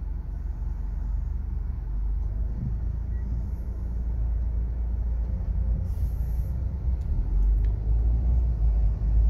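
Low, steady rumble of a car's engine and road noise heard from inside the cabin, growing louder over the last few seconds as the car pulls away from a traffic light.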